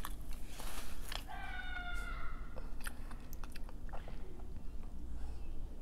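Close-up chewing and biting of food, with small wet clicks and soft crunches. About a second and a half in, a child's high-pitched, drawn-out cry, falling slightly in pitch, sounds in the background.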